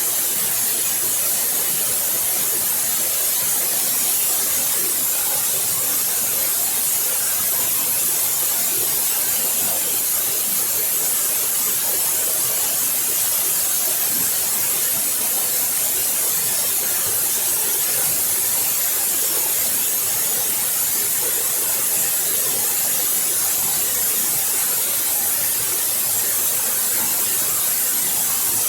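Waterfall, its falling water making a steady, unbroken hiss strongest in the high range.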